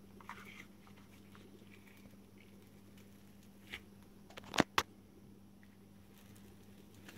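Quiet handling of a clear plastic musubi press as its lid is pushed down onto the rice, with a few faint taps and two sharp plastic clicks in quick succession a little past the middle. A steady low hum runs underneath.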